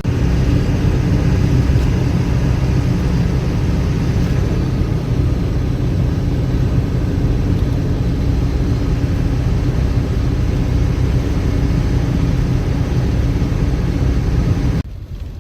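Steady engine and road drone inside a moving truck's cab, low and even with a faint hum. It drops off suddenly near the end to a quieter level.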